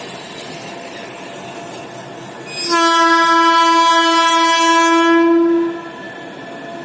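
Horn of an Indian Railways electric locomotive sounding one long, steady blast of about three seconds, starting about two and a half seconds in, over a quieter steady noise from the approaching train.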